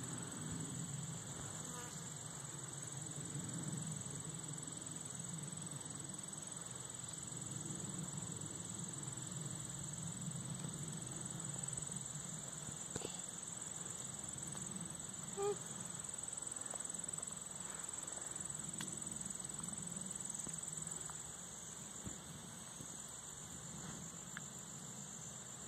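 Steady high-pitched trilling of an insect chorus, with a low, wavering hum beneath it. A brief short note stands out a little past halfway.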